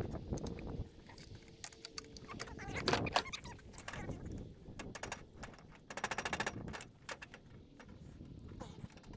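Metal tools and parts of a wedge-style air brake can clinking and knocking on a steel tool cart top as the can is worked apart by hand, with a quick run of rapid clicks about six seconds in.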